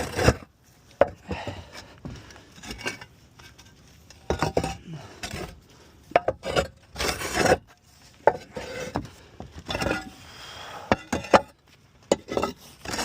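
Roof tiles being lifted off a valley and handled: irregular hard clacks and knocks of tile on tile, with short scrapes in between.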